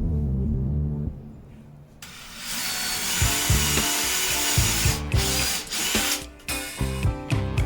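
Background music with a beat over a power tool, likely a drill, running in bursts; the tool noise drops away for about a second near the start and then comes back.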